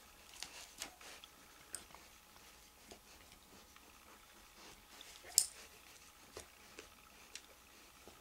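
Faint, scattered small clicks and ticks of metal tweezers gripping and working at surgical skin staples, with one sharper click a little past halfway.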